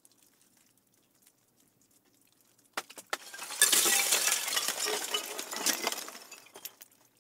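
Candle ice crystals tinkling and clinking with a glassy sound. Near silence at first, then two sharp clicks about three seconds in, followed by a dense run of clinks that lasts about three seconds and dies away.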